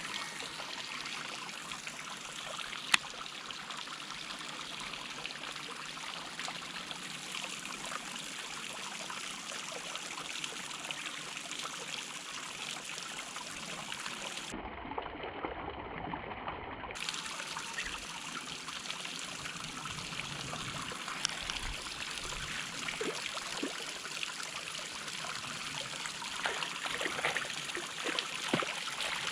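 Steady trickling of running water, with one sharp click about three seconds in and a few soft knocks near the end.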